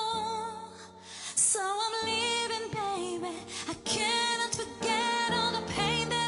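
A woman singing a slow melody with vibrato into a microphone over held keyboard chords, with a brief pause between phrases about a second in.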